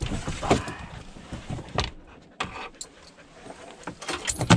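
Metal clinking and rattling as a dog lead's brass snap hook and other metal gear are handled, with scattered sharp knocks. The loudest cluster comes just before the end.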